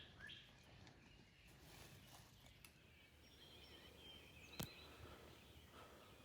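Quiet outdoor ambience with faint calls. A run of quick repeated chirps stops just after the start, a few faint high calls follow, and a single sharp click comes about four and a half seconds in.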